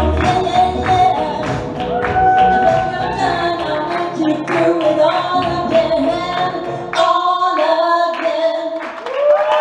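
A woman singing into a microphone over flamenco-style backing music with a steady beat and sharp rhythmic accents. About seven seconds in the bass and beat drop out, and the voice carries on with held notes.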